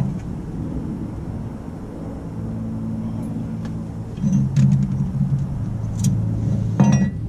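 A motor vehicle's engine running, a steady low hum that grows louder about halfway through, with a few light clicks over it.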